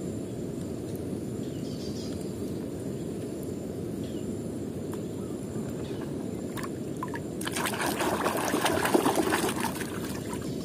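Water in a plastic tub being stirred and splashed by hand, building to a stretch of busy sloshing and splashing about three-quarters of the way in, over a steady low rushing noise.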